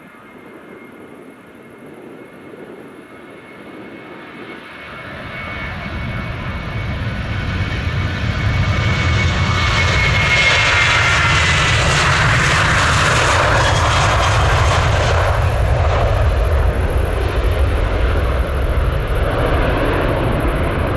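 Heavy jet airliner at takeoff power, its engine noise growing steadily louder as it approaches. A high whine drops in pitch as it passes, about halfway through. A loud, steady low rumble follows.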